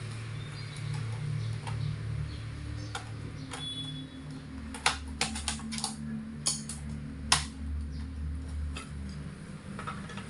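Sharp plastic and metal clicks and taps, a few to the second about halfway through, from a laptop's panels, screws and screwdriver being handled as the laptop is taken apart. Beneath them runs a steady low hum.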